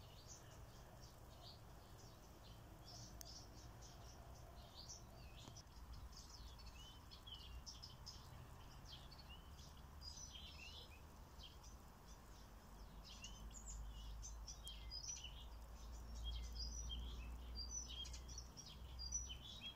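Faint birdsong: several small birds chirping and trilling in quick, overlapping short calls. A low rumble underneath grows stronger in the second half.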